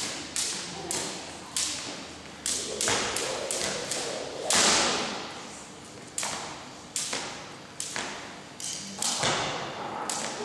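Freestyle skipping rope slapping the hard hall floor, mixed with sneakers landing, in an irregular beat of about one to two sharp slaps a second that echo in the hall; the loudest comes about four and a half seconds in.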